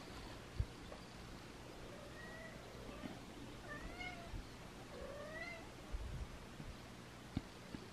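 Domestic cat meowing: three calls about a second and a half apart, each rising in pitch. A few short low thumps are also heard.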